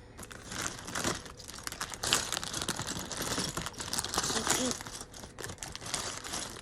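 Small plastic Lego pieces and packaging being handled: a dense run of crinkling, rustling and clicking.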